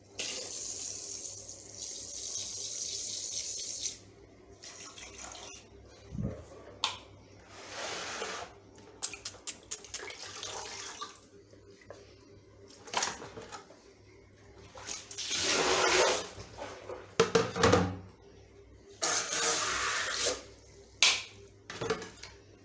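Water spraying from a hand-shower hose for about four seconds while shampoo is rinsed from a wet English Angora rabbit's coat. After that come separate bursts of splashing and pouring water as the washbasin is emptied and rinsed.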